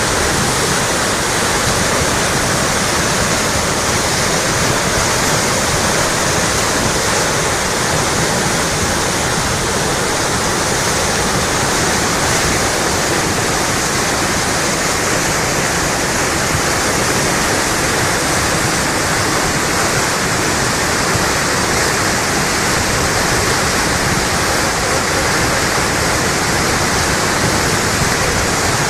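Muddy flash-flood torrent rushing across a wide wash: a loud, steady noise of fast-flowing water.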